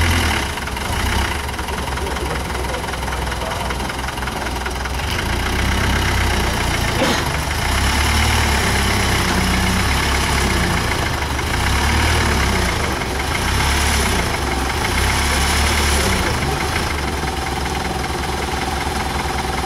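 Land Rover Defender 90 challenge truck engine running under load on a steep climb over a tree trunk, its revs rising and easing in several surges.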